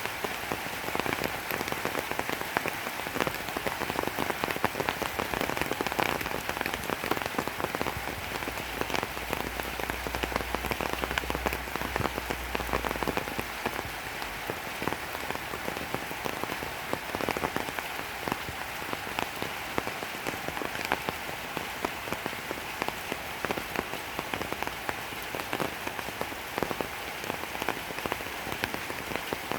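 Steady rain falling on a surface, a dense patter of drops. A low rumble joins underneath about eight seconds in and fades out some six seconds later.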